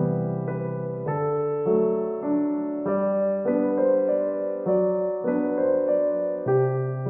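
Background music: a gentle solo piano piece playing slow, sustained chords and a simple melody.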